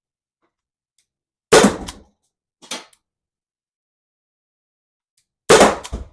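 Byrna CO2-powered rubber-ball pistol firing: two sharp shots about four seconds apart, with a fainter knock shortly after the first.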